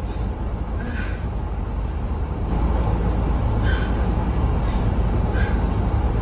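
Steady low rumble that gets louder about two and a half seconds in, with three brief, faint higher-pitched sounds spread through it.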